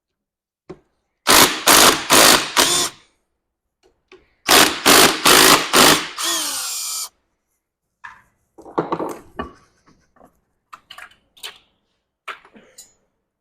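Cordless power tool running out engine bolts in two bursts of about a second and a half, its motor whining down after the second. Scattered light clinks and knocks of metal parts being handled follow.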